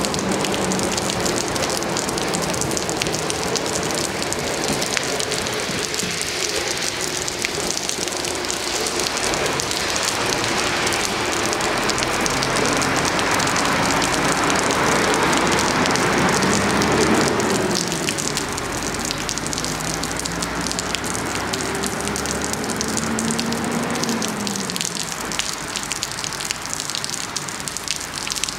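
Steady rain falls throughout. In the first few seconds the motor whine of an electric train pulling away is heard, fading as it goes; later come a couple of brief faint tones that rise and fall.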